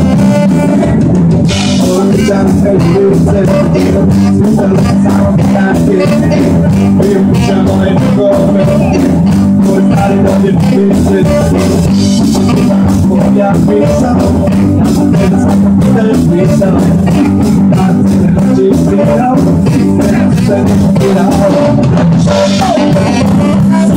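Live band playing a cover song: drum kit keeping a steady beat under electric guitar, bass and saxophone, with a male singer.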